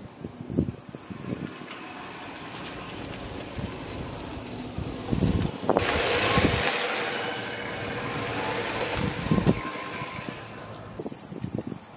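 A small utility cart driving off, its motor giving a steady hum, with wind gusts thumping on the microphone.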